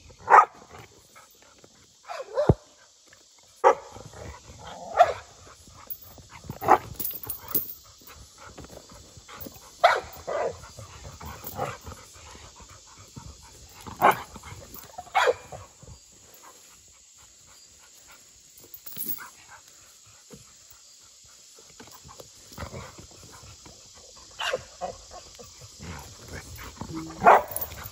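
An American bully dog barking in short single barks, a dozen or so, spread irregularly with pauses of a second to several seconds between them.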